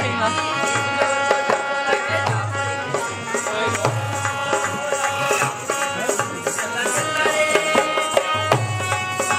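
Live Rajasthani folk music on a dholak barrel drum and a harmonium: held reed chords over a steady hand-drum rhythm with repeating deep bass strokes.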